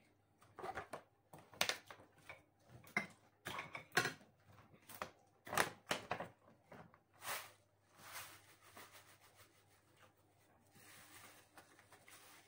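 Plastic snack packet rustling and crinkling as it is handled, in irregular sharp crackles.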